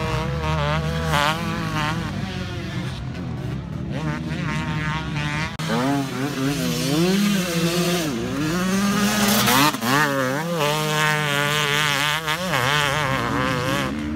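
Motocross bike engines revving on the track, the pitch repeatedly rising and falling as the riders work the throttle and shift gears. Sudden break about five and a half seconds in, after which a bike is louder.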